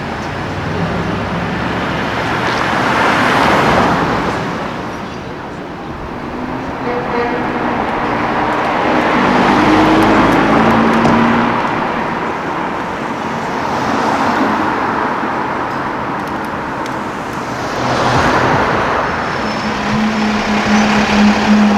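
Street traffic with cars passing one after another, the road noise rising and fading in slow swells. Near the end a car engine holds a steady low note that grows louder.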